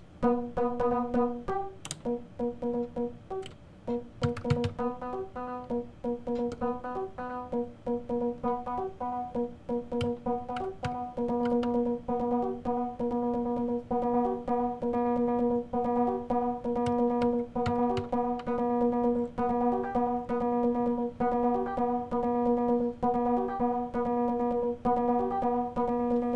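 Akai Timbre Wolf four-voice analog synthesizer playing a step-sequencer pattern: a fast, repeating run of short bass-synth notes. About eleven seconds in, the knobs are turned and the notes lengthen and run together.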